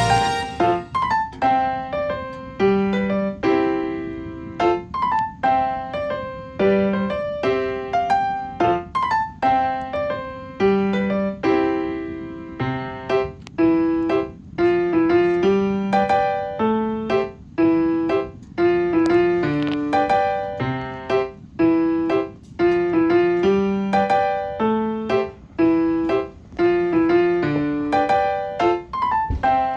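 Background piano music: a steady stream of struck piano notes in an even rhythm.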